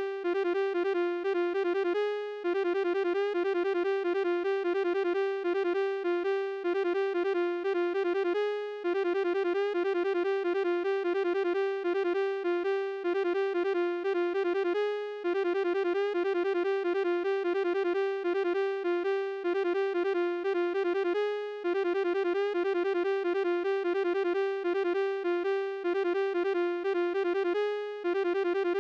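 Electronic logo jingle put through a "1000 flutes" edit effect: a dense, buzzy keyboard-like tone made of many stacked copies, pulsing rapidly on nearly one pitch. It loops, breaking off briefly about every six seconds before starting again.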